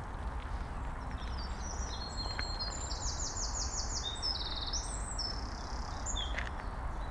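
A songbird singing a long, fast song of high trills and twittering notes, starting about a second in and lasting about five seconds, over a steady low rustle.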